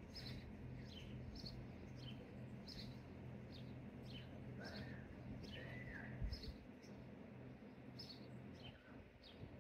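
Small birds chirping: short high chirps repeated about twice a second, with two lower, arched calls around the middle. A faint low hum runs underneath, and a single soft thump comes about six seconds in.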